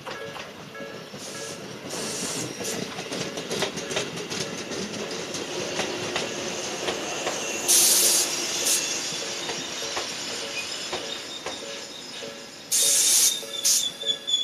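A train passes over a level crossing with its wheels clacking on the rail joints, while the crossing's electronic warning bell (Nikko-type tone at slow tempo) keeps sounding its repeating pattern. Loud bursts of hiss come about eight seconds in and again near the end.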